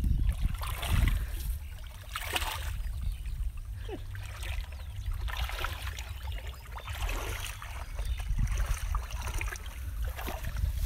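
Shallow muddy water sloshing and splashing as hands and legs move through it, groping in the mud, in several separate splashes over a steady low rumble.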